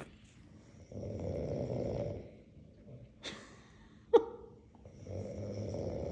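An elderly woman snoring heavily while asleep: two long, rasping snores a few seconds apart, each lasting over a second. A brief, sharp squeak cuts in between them.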